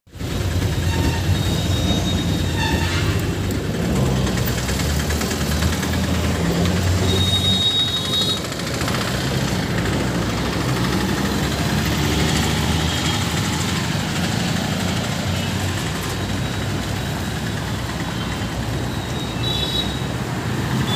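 Road traffic: vehicle engines running and passing in a steady low rumble, with a couple of brief high-pitched tones.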